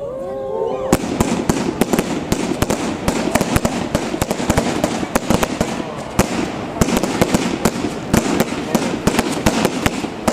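Fireworks display: after a quiet first second, a dense barrage of rapid bangs and crackles from comets and bursting shells, many reports a second with no let-up.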